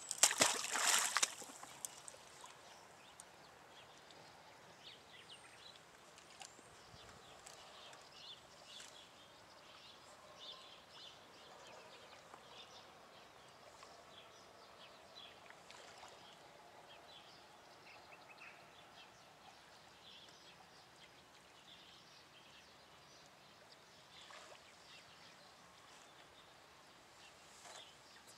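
A small carp splashing into the water as it is dropped back, a brief loud splash in the first second and a half. After it, a faint outdoor background with scattered small chirps and ticks.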